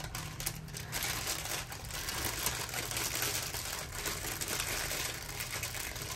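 Plastic packaging crinkling and rustling as it is handled, a steady run of small crackles.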